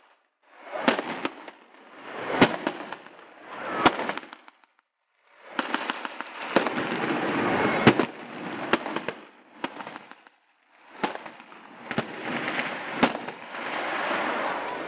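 Single shots from rifles firing blanks, cracking one at a time at irregular intervals over a steady background noise. The sound drops out abruptly twice.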